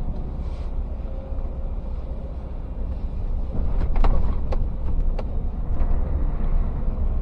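Scania S650 truck's V8 engine running on the move, a steady low rumble heard inside the cab, with a few light clicks about halfway through.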